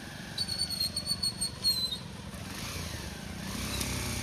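Motorcycle engines running at low speed, one growing louder near the end as it comes closer. About half a second in, a high trilling whistle sounds for about a second and a half, ending with a short falling note; it is the loudest thing here.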